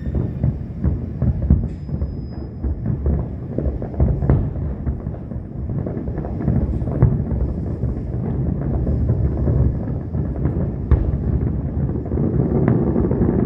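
Aerial fireworks going off in a dense finale barrage: rapid overlapping booms that merge into a continuous low rumble, with sharp cracks cutting through it.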